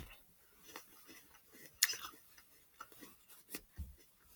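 Crunching and chewing of a bite of crisp green apple: irregular crisp crunches, with one louder crunch nearly two seconds in.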